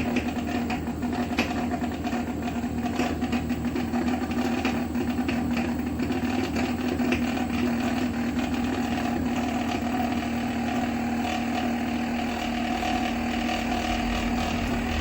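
Inverter air-conditioner compressor running steadily with a constant hum and light irregular ticking. It is running normally with no error, now that the EEPROM data matches the compressor model.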